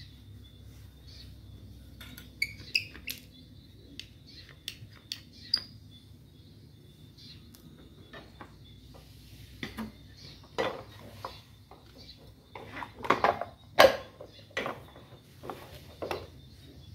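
Metal parts of a Honda Supra's rear wheel clinking and knocking as the wheel is fitted back by hand: scattered light clicks at first, then a denser run of louder clanks and knocks, the loudest about three seconds before the end.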